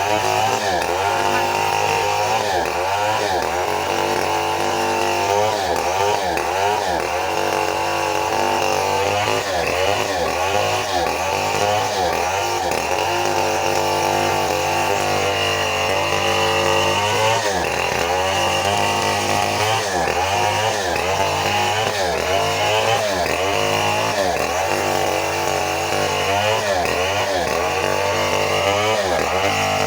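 Stihl 070 two-stroke chainsaw running at high speed while rip-cutting a very old teak log lengthwise, its engine note dipping and recovering again and again as the chain works through the wood.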